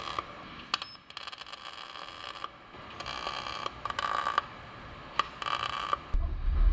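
MIG welder tack welding a steel rocker panel butt joint: about five short bursts of arc noise, the longest about a second and a half, with pauses between them. A deep hum starts near the end.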